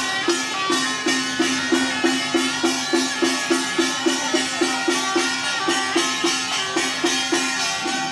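Traditional procession music with a steady, quick beat of about three strokes a second under held melody lines.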